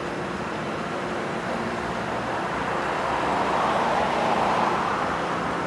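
Steady road-traffic noise, a mix of rumble and hiss, swelling for a couple of seconds past the middle.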